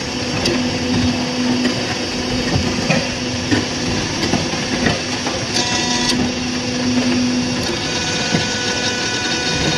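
Interlocking brick-making machine running: a steady motor hum with rattling and knocks. The hum drops out about two seconds before the end.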